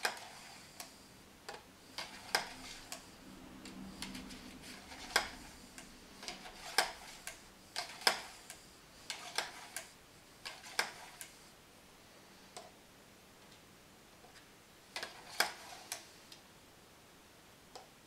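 Irregular sharp clicks and taps of a cleaning rod and brush being worked through the barrel of a Hatsan AT-P1 PCP air pistol and knocking against the gun. The clicks come in uneven clusters and pause for a few seconds partway through.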